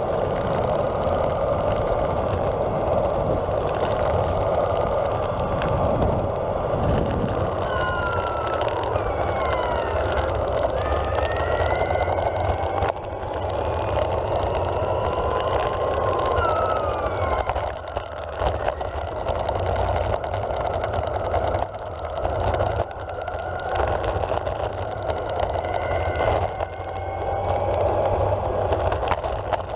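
Evolve Carbon GT electric skateboard riding over asphalt: a steady rumble of the wheels rolling on the road, with an electric motor whine that rises and falls in pitch several times in the middle as the board speeds up and slows down.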